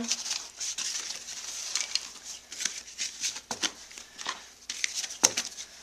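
Rustling and small clicks of torn Hot Wheels cardboard backing cards and empty plastic blister packs being handled, with a few sharper ticks now and then.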